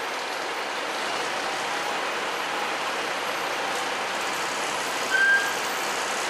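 Double-decker bus standing with its engine idling: a steady, even running noise. A single brief high-pitched tone cuts through about five seconds in.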